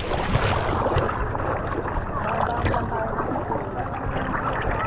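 Shallow seawater sloshing and gurgling around a camera held at the surface, with many small clicks and pops; the sound turns duller about a second in as the camera dips lower into the water.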